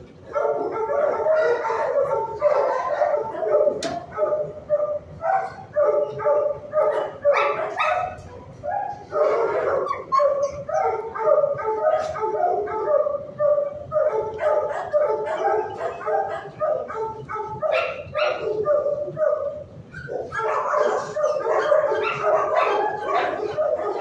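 Dogs in shelter kennels barking, a near-continuous din of overlapping barks with short lulls about 8 and 20 seconds in.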